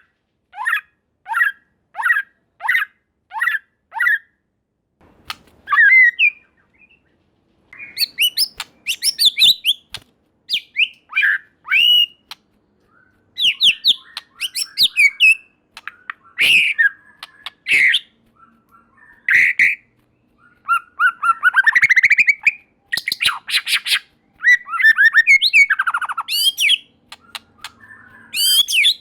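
White-rumped shama singing: about seven short repeated call notes at roughly one and a half a second, then a string of varied phrases of sliding whistles, rapid trills and fast stuttering runs of notes.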